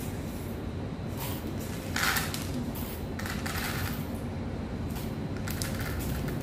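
Several short rustling and clattering sounds of equipment being handled, over a steady low room hum.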